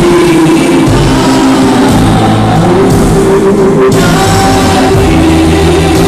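Loud live worship music from a church band, with long held sung and played notes.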